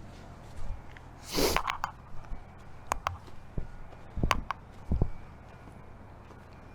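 Footsteps: a few irregular thuds and scuffs, with one short hissing burst about a second and a half in.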